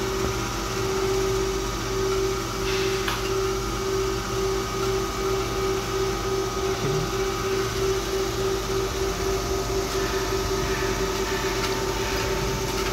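Thyristor-controlled DC motor drive and its DC motor running under load, a steady electrical hum with a fluttering mid-pitched tone. The load is being eased off, so the motor is slowly picking up speed.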